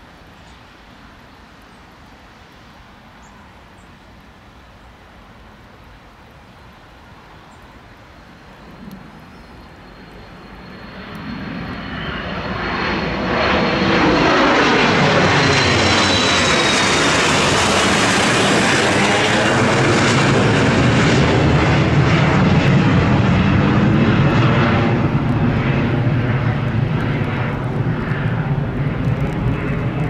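Embraer Praetor 600 business jet's twin turbofan engines at takeoff power: a thin high whine is heard first, then the jet noise swells from faint to loud about ten seconds in as the aircraft rolls past. The whine drops in pitch as it passes, and the noise stays loud before slowly easing off near the end.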